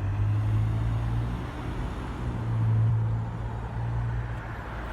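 Road traffic: a vehicle engine's steady low hum over road noise, swelling a little near the middle.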